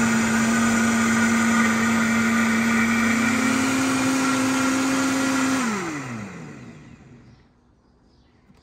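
Countertop blender running steadily as it purées watermelon into a smooth liquid, its motor giving a steady whine. About five and a half seconds in it is switched off, and the pitch falls away as the blades spin down to a stop.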